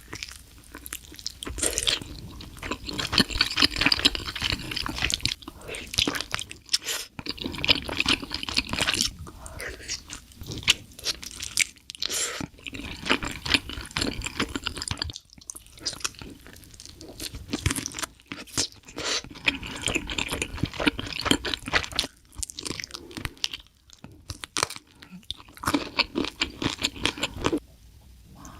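A person eating crispy food, close to the microphone: bouts of crunching and chewing a few seconds long, separated by brief pauses.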